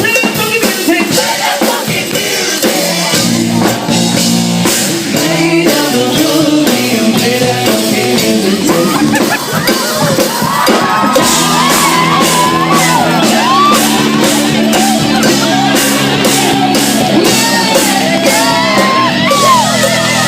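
A live rock band playing loud, with a singing voice over the band. From about halfway through, a steady beat of sharp percussion hits runs under it.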